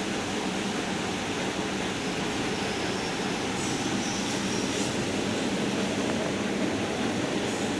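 Steady rushing of running water, an even hiss with no rhythm or breaks.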